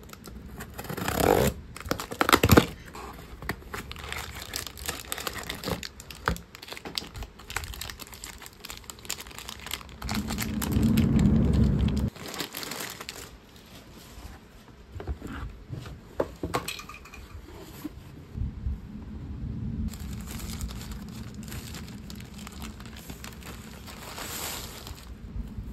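Parcels being unboxed by hand: the tape on a cardboard box is slit with a small plastic box cutter, then plastic wrappers and a clear plastic zip bag crinkle and rustle as they are handled. The sounds come in irregular rustles and scrapes, with a louder stretch of about two seconds around ten seconds in.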